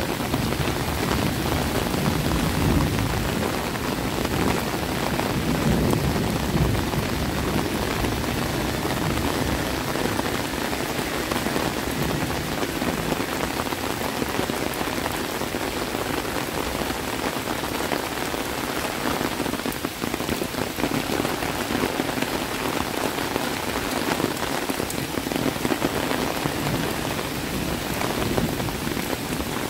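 Heavy rain falling, a steady, even wash of drops on the surfaces around.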